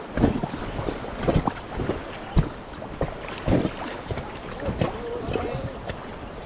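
River water rushing around a rubber raft on a whitewater run, with irregular splashes and knocks from paddles and the boat.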